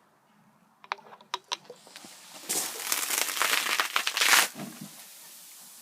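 A few sharp clicks, then a loud fizzing hiss for about two seconds as a Coke bottle erupts in foam after Mentos are dropped in; the hiss dies away after that.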